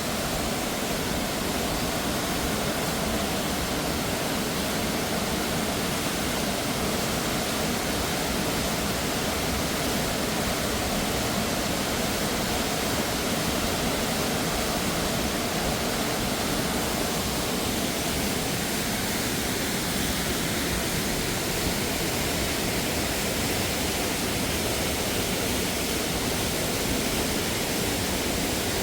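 Steady rush of water pouring down Josephine Falls, an even roar with no let-up.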